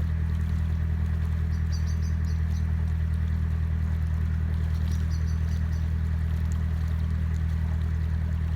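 An engine running steadily, a low hum with a fast, even throb and no change in speed.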